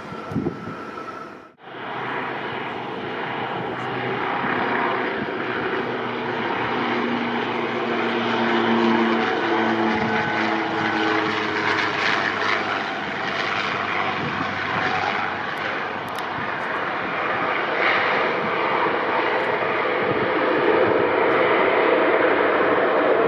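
BAe Jetstream 32 twin turboprop, Garrett TPE331 engines, landing: steady propeller and engine noise through the flare and touchdown, getting louder near the end as it rolls out along the runway.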